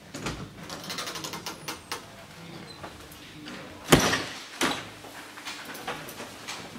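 A glass-panelled door being opened and passed through. Clicks and rattles of the handle and latch come first, then a loud bang about four seconds in and a smaller thud just after.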